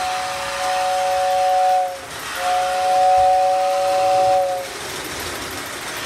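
Toy train whistle from the postwar Lionel 681 turbine's tender, blowing a steady two-note chord in blasts: one ends about two seconds in, a second lasts about two seconds, and a third starts just at the end. Under it runs the steady noise of the train rolling on the track.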